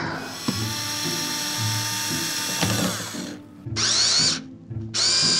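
Cordless electric screwdriver whirring as it backs screws out of a plywood crate: one long run of about three seconds, then two short runs near the end.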